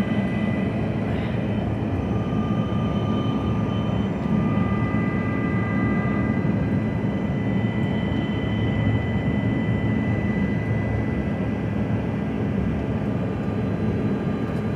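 Jet airliner in flight, heard inside the passenger cabin: a steady low drone of engine and airflow noise, with a few thin steady whines above it.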